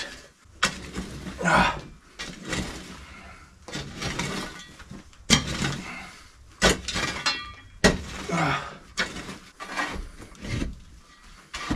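Metal shovel blade scraping and digging into packed, stony dirt and old cow manure. Repeated gritty scrapes and crunches come at uneven intervals, roughly one every second or so.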